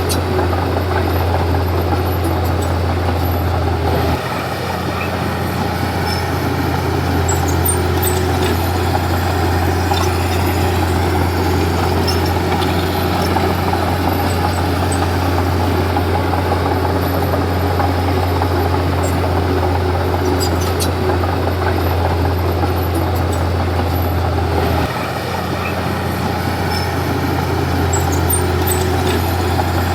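Komatsu D31P bulldozer's diesel engine running steadily. Its note dips slightly about four seconds in and picks back up near the end, with faint scattered clicks over the drone.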